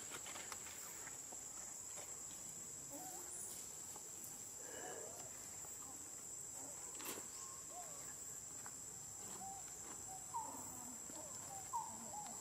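Steady high-pitched drone of insects, with a few faint short rising-and-falling chirps over it near the end.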